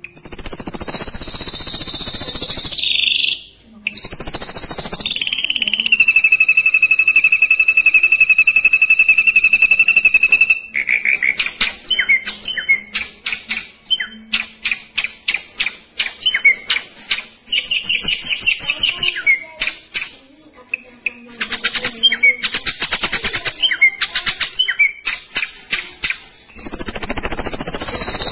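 Ashy drongo singing. It opens with dense, high buzzy trills, then gives one long even rapid trill. After that comes a long run of quick separate chirps and whistled notes, and near the end it returns to dense high trilling.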